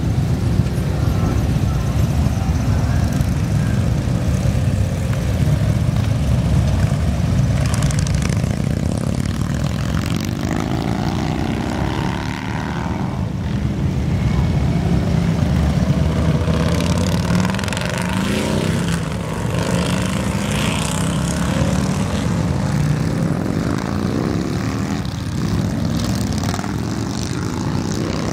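A procession of large touring motorcycles riding past one after another, their engines making a continuous low rumble, with the pitch rising and falling as each group of bikes accelerates and goes by.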